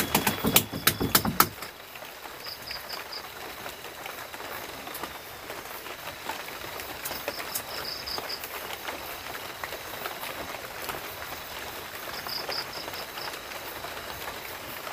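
Steady rain falling on a leaf-thatched hut, an even hiss. Short high pulsed chirps come back every few seconds, and a few sharp clicks sound in the first second and a half.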